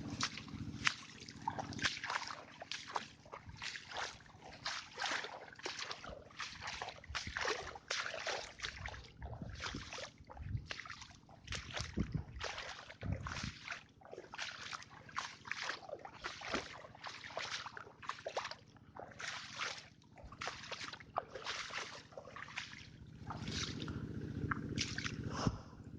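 Rhythmic sloshing and splashing of water, about one and a half strokes a second, as someone moves through shallow swamp water.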